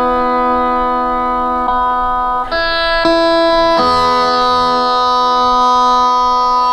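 Guitar plugged straight into a computer's onboard sound input, playing a slow solo line of long held notes. The note changes about four times.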